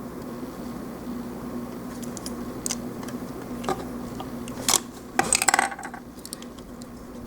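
Hard plastic model-kit parts being handled and pressed together: a few light clicks, then a louder rattling clatter of plastic about five seconds in, over a steady low hum.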